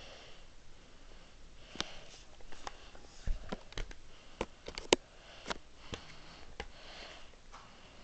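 Faint steady hiss of a Hunter Berkeley 52-inch ceiling fan turning on low, with soft breaths or sniffs close to the microphone every couple of seconds and a scatter of light, irregular clicks, the sharpest about five seconds in.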